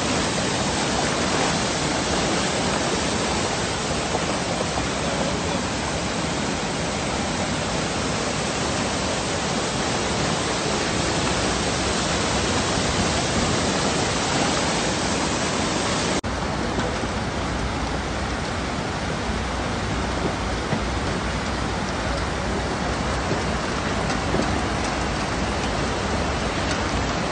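Floodwater rushing across a race track and pouring in torrents through gaps in a trackside wall: a loud, steady rush of water. About sixteen seconds in it cuts to a second recording of running floodwater that sounds duller and less hissy.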